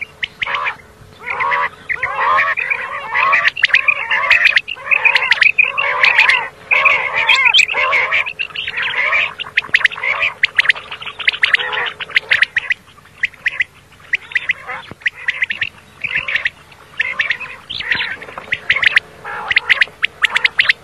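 Common quail calling: a dense, rapid run of short chirping call notes, several a second, with a faint steady hum underneath.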